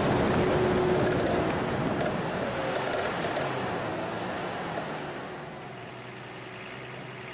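SISU GTP 4x4 protected truck running along a dirt road, engine and tyre noise steady and loud. About five seconds in it drops away to a quieter, even engine note.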